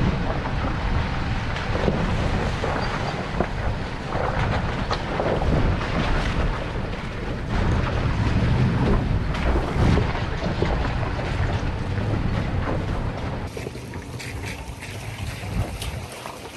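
A 4x4 driving on a rough dirt trail: engine and tyre rumble with uneven knocks, mixed with wind buffeting the microphone.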